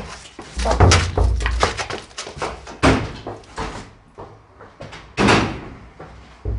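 Irregular knocks, thumps and scraping, the heaviest about a second in, with further loud knocks near three seconds and a little after five seconds.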